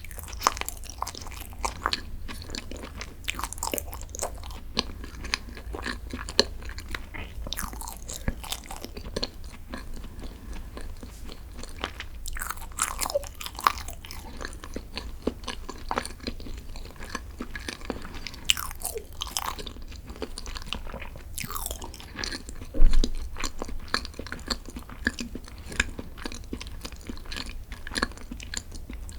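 Close-miked chewing and biting of green tea desserts, with many sharp, wet mouth clicks. One louder thump comes about three-quarters of the way through.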